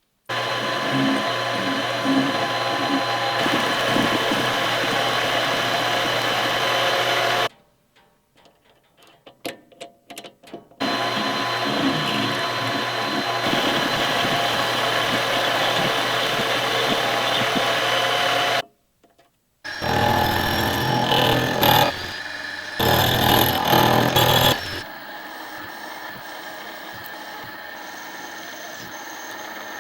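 A power tool's motor running with a steady whine and grinding noise, in several takes that cut off abruptly, with light clicks and taps in the short gaps between them; near the end it gives way to a quieter steady hiss.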